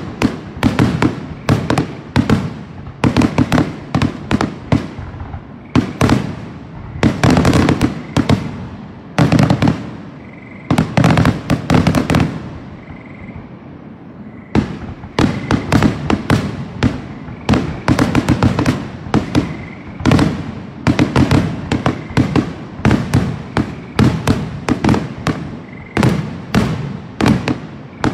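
Aerial firework shells launching and bursting in rapid succession in a grand finale: a dense, continuous barrage of bangs. There is a brief lull about halfway through, then the barrage resumes.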